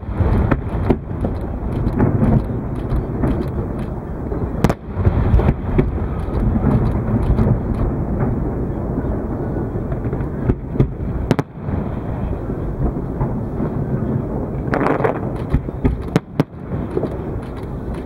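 Fireworks display: aerial shells bursting one after another in a dense, continuous rumble of booms, with sharp cracks standing out a few times.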